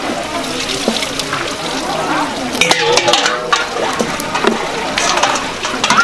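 A kitchen knife slicing raw fish fillets and tapping on a wooden cutting board, amid busy market chatter. Near the end, a steel bowl is dipped into a basin and water sloshes.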